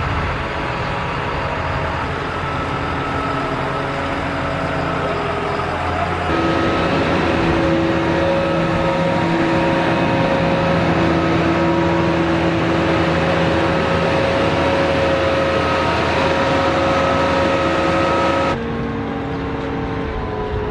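Engine running steadily at a constant speed, with its tone and level shifting abruptly about six seconds in and again near the end.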